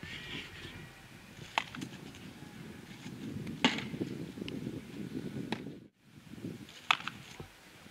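Several sharp cracks of baseballs off a bat and into a leather glove during infield ground-ball practice, the loudest near the middle, over low outdoor noise. The sound cuts out for a moment about six seconds in.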